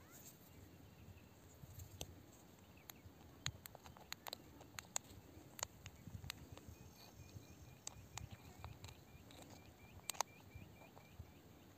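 Faint scattered clicks and light taps of hands handling a stone and a small metal flashlight on wet rock. From about the middle, a quick series of short high chirps repeats about four times a second, then stops near the end.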